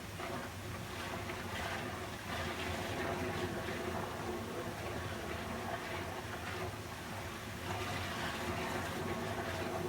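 Water flowing steadily, an even rushing hiss that holds at one level without a break, with a faint steady hum underneath.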